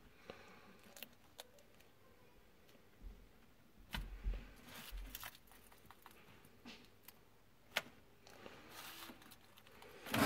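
Quiet handling noise: faint rustling with scattered sharp light clicks and a soft low bump about four seconds in.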